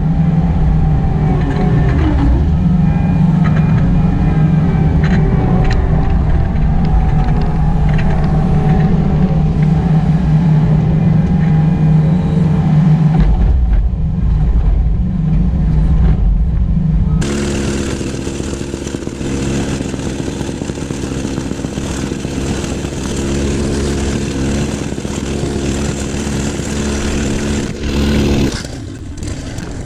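Excavator engine running steadily under work. About 17 seconds in the sound changes suddenly to a different steady engine note.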